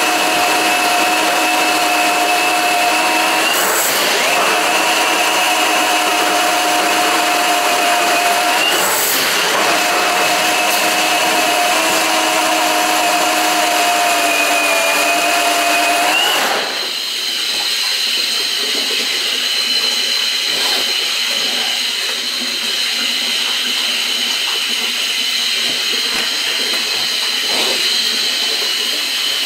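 Milwaukee M18 battery drain snake running steadily, spinning its 7/8-inch cable into a clogged floor drain; the motor tone briefly wavers twice. About halfway through, the sound changes to a quieter, higher-pitched steady whine.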